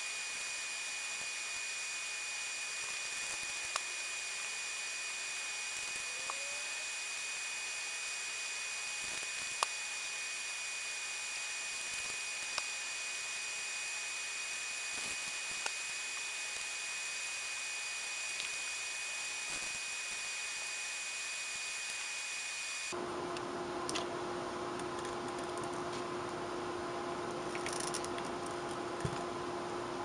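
Steady hiss with a thin high whine, broken by a few faint clicks and taps from a hot glue gun and fabric being handled. About three-quarters of the way through the background changes abruptly and a low steady hum sets in.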